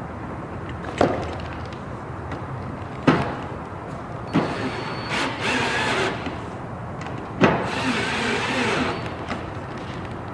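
Sash lock hardware being fitted to an aluminium greenhouse door frame: four sharp knocks of metal parts being set down and handled, and two stretches of scraping, rattling work as the lock is fastened on.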